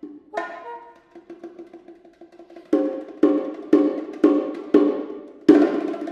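Bongos played solo: a quick run of light taps, then loud ringing strikes about twice a second, capped by a hard accent near the end.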